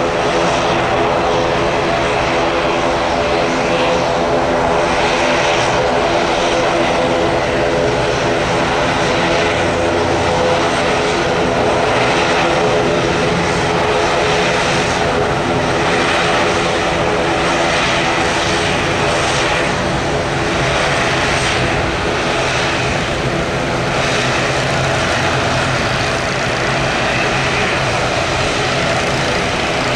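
Aircraft engines running steadily: a loud, constant drone with a hum of several steady tones that holds without a break.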